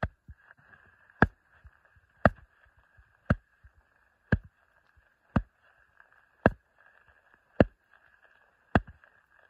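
Gloved hand striking the flat blade of a snow shovel laid on top of an isolated snow column: sharp, loud taps about one a second, eight of them. They are the loading taps of an avalanche column stability test, hammering the slab above a buried weak layer.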